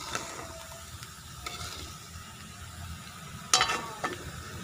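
Hot cooking oil sizzling in an aluminium wok with freshly fried small white anchovies. A metal spatula scrapes and knocks against the wok a few times, with one loud clatter about three and a half seconds in.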